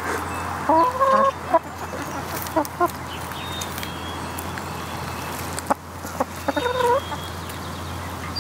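Hens clucking as they forage on a compost pile, with short calls about a second in and again near seven seconds.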